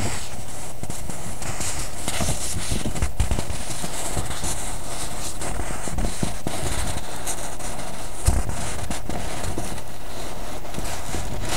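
Steady background hiss and low electrical hum, with scattered faint clicks and light crackles from handling, and one slightly louder knock about eight seconds in.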